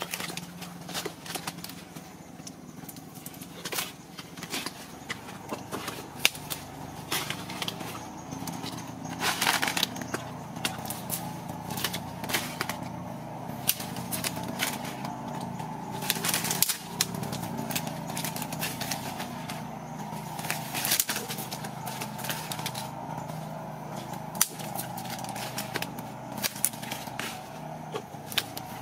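Mangrove branches and leaves being handled and stripped by hand: leafy rustling with irregular sharp snaps and crackles of twigs breaking, over a steady low background hum.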